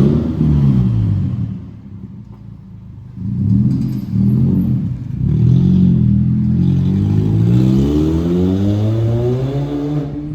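Toyota Corolla 1.8-litre four-cylinder engine running through a DPW stainless-steel exhaust cutout, revving up and down under acceleration. The revs drop off about two seconds in, climb again in short pulls, then make one long steady rise through the second half that falls away near the end.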